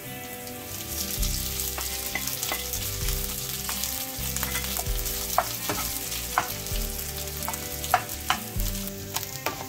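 Boiled potato pieces sizzling in hot oil in a non-stick frying pan, while a wooden spatula stirs and breaks them up with repeated sharp taps and scrapes against the pan.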